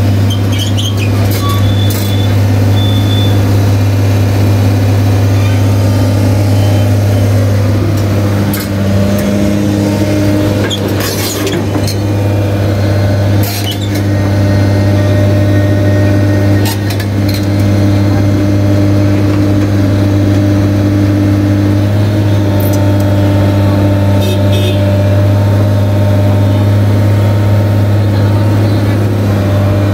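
Heavy vehicle diesel engine running steadily at a constant speed, with a few short sharp knocks scattered through.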